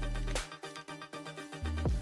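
Electronic background music with a steady repeating pattern. The bass drops out for about a second midway, then comes back in with a falling sweep near the end.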